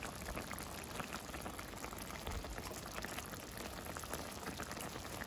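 Coconut butter and annatto sauce simmering in a frying pan, a steady fine bubbling with many small pops.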